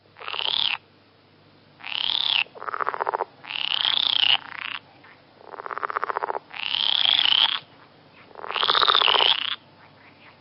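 Recorded frog-like animal calls: seven short calls about a second apart, alternating between higher calls that rise and fall in pitch and lower, buzzy pulsed calls.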